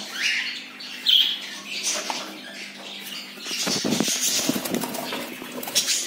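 Caged budgies chirping and squawking, with a brief rustling flurry, like wing flapping, a little under four seconds in.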